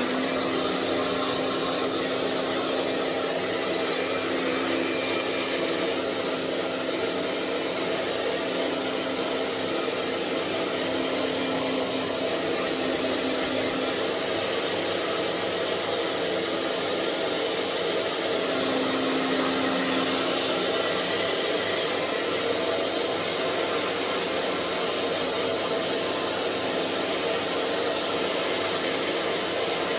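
Hand-held hair dryer running steadily on one setting: a constant rush of blown air over a steady motor hum.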